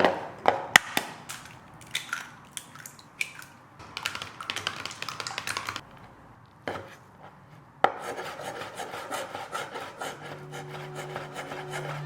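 Kitchen food-prep sounds: several knocks and clicks on a wooden surface, a stretch of scraping, then a sharp knock and a fast run of rubbing strokes. Faint background music comes in near the end.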